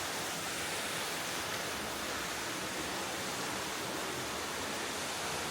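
Waterfall splashing into a creek pool: a steady rushing of falling water.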